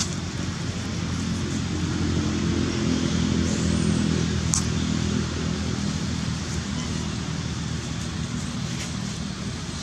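A motor vehicle's engine humming steadily, growing louder around the middle and easing off again, over a constant background hiss, with one brief click.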